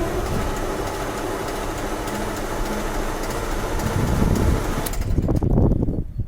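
KamAZ 740 V8 diesel being cranked on its starter without firing, a steady mechanical whirr that stops about five seconds in: the engine fails to start.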